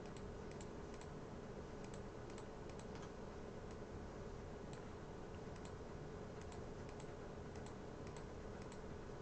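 Faint, irregular clicking of a computer keyboard and mouse during 3D modelling work, over a steady background hum.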